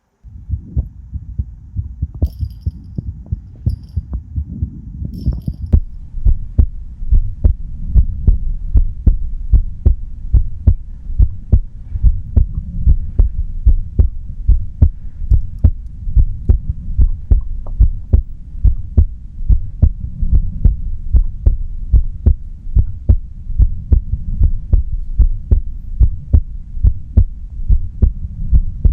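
A person's heartbeat picked up close and loud: steady low thumps, a little over one beat a second. The beats grow clearer about six seconds in, with a few faint clicks before that.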